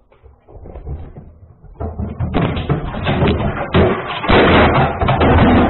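A flat-screen TV knocked off its stand by a cat, crashing down with a few seconds of loud banging and clattering that begins about two seconds in.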